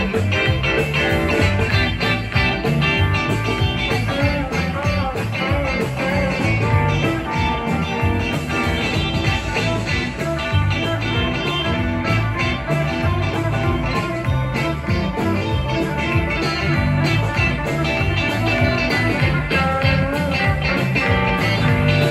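Live band playing an instrumental blues-rock number led by guitar, with a steady beat.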